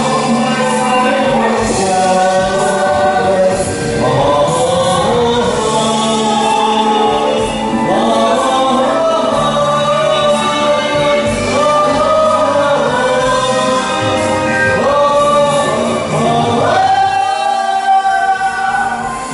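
A man and a woman singing a Vietnamese song together into microphones over accompanying music, with long held notes.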